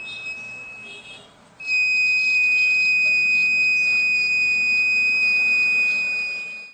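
A fire alarm model's buzzer sounding one steady high-pitched tone. It is quieter at first, breaks off briefly about a second and a half in, then sounds louder and steady until it cuts off suddenly.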